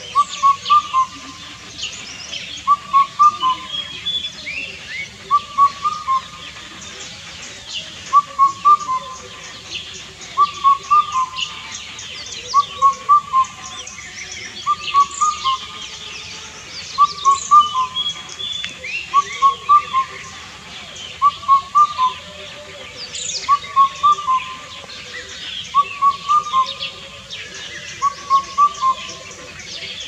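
Indian cuckoo (Cuculus micropterus) singing its four-note song, the phrase repeated over and over about every two seconds. Other small birds chirp and twitter more faintly in the background.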